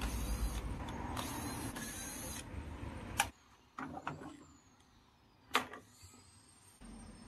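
Hands working on a washing machine's control-panel parts and wiring: a rustling clatter for about three seconds that cuts off abruptly, then two sharp clicks a couple of seconds apart.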